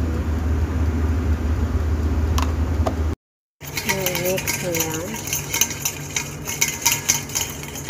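Metal spoon stirring and scraping olive oil and spices in a stainless steel bowl, with rapid, irregular clinks against the steel in the last couple of seconds. A steady low hum sits under the first few seconds.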